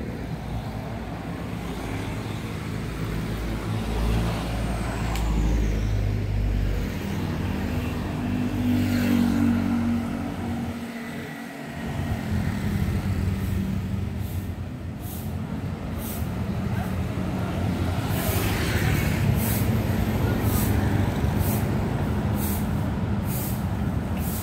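Road traffic: engines of passing motor vehicles running, swelling and fading as they go by, with several short hisses in the second half.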